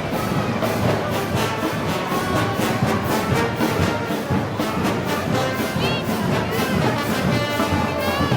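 Brass band playing festival march music, with trombones and trumpets over a steady percussion beat.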